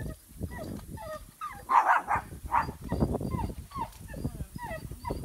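Dogs whining and yelping in excitement, short pitched cries over and over, with a couple of louder barks about two seconds in.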